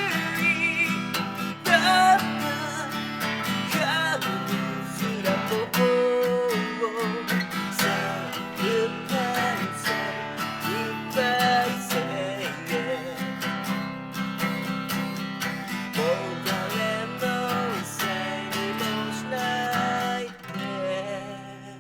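Acoustic guitar strummed while a voice sings a Japanese rock ballad. Near the end the final chord is left to ring and fades out.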